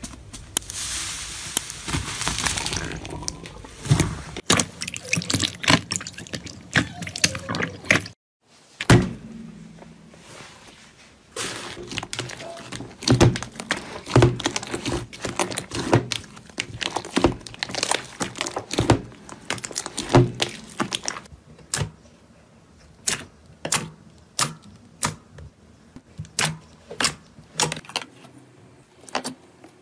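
Slime being pressed, kneaded and stretched by hand: wet squishing at first, then a long run of sharp pops and clicks that thins out to single pops near the end, with a brief break about eight seconds in.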